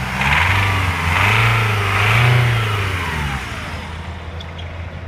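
Nissan YD22ETI 2.2-litre four-cylinder turbo-diesel revved in a few blips from idle, its pitch rising and falling with each, then dropping back to idle about three seconds in.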